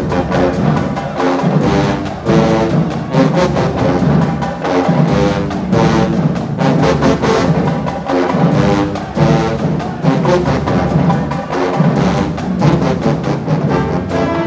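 HBCU show-style marching band playing: a full brass section holds loud chords and a melody over the drumline's steady beat.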